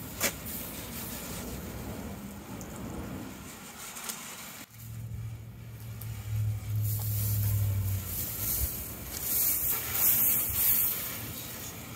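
Pressure washer starting up about five seconds in with a steady low hum, then its water jet hissing loudly as it blasts paint on a primed fiberglass test panel to test adhesion.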